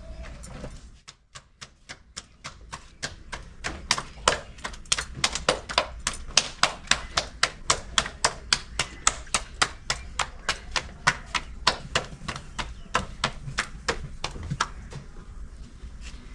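Hands slapping roti dough flat between the palms, a steady run of sharp smacks about four a second that starts about a second in and stops shortly before the end.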